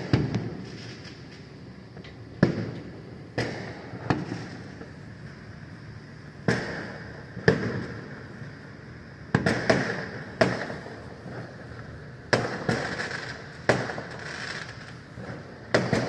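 New Year fireworks going off: a dozen or more sharp bangs at uneven intervals, some in quick pairs, each dying away in a trailing echo.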